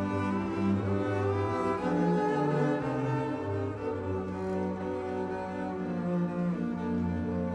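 A quartet of double basses played with the bow, overlapping held notes moving together in low harmony, the notes changing every second or so.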